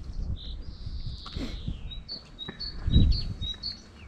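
A songbird singing: a single note, a long downward-sliding whistle, then a quick run of short repeated notes. Underneath is a low rumble on the microphone, loudest about three seconds in.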